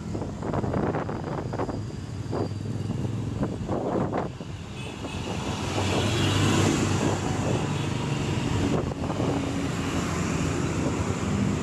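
Road traffic heard while riding along a busy main road: vehicle engines running steadily, with wind gusting on the microphone. A large dump truck passing close alongside makes it louder from about five to eight seconds in.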